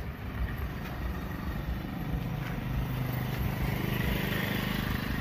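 Motor scooter engine running as it rides past close by, growing louder about two seconds in.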